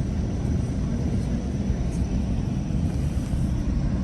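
Steady low rumble of a moving GO Transit commuter train, heard from inside the coach: the even running noise of wheels on rails.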